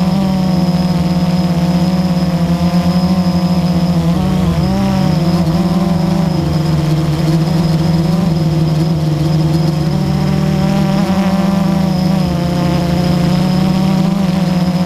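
Blade 350 QX quadcopter's electric motors and propellers buzzing steadily, heard up close from its onboard camera. The pitch wavers briefly about four seconds in, as the motors change speed.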